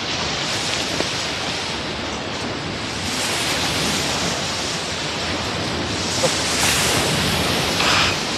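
Sea surf washing steadily along the shore, with a few light knocks and a stronger surge of wash near the end.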